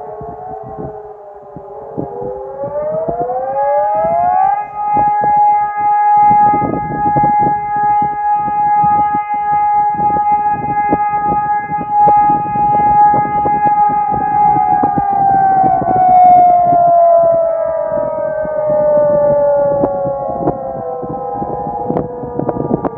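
Civil defence siren sounding during a siren test. Its tone glides up about three seconds in, holds steady for about ten seconds, then slowly winds down, while another siren tone overlaps near the start and again near the end.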